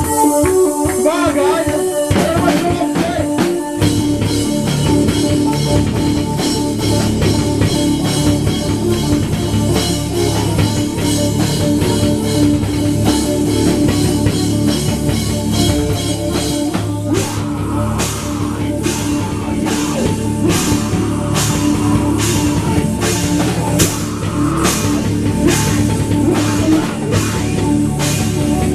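Live heavy rock band playing: electric bass, drum kit and distorted guitars. The full band comes in about four seconds in, and from about halfway the cymbals are struck on a steady beat.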